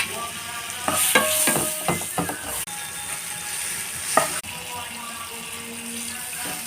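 Food sizzling in a hot pan while being stirred, with a utensil scraping against the pan in a quick cluster about a second in and once more about four seconds in.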